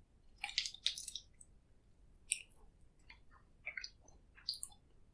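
Close-miked chewing, wet squishy mouth sounds with irregular crackly clicks, loudest about half a second to a second in.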